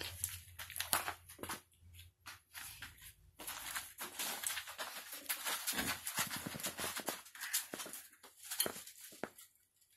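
Pit bull moving about on a plastic tarp floor among clutter: a dense run of rustles and light knocks from his paws and the things he brushes past, dying away near the end.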